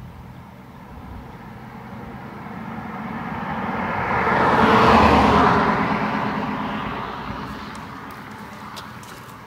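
A car passing close by at road speed on asphalt: its tyre and engine noise swells to a peak about halfway through, then fades as it drives off.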